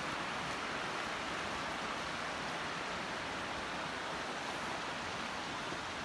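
Stream water rushing steadily: an even, unbroken hiss.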